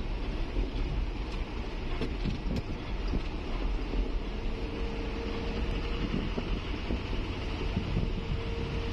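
Steady engine and road noise heard inside the cab of a vehicle driving on a highway, a deep rumble throughout, with a faint steady hum joining about four seconds in.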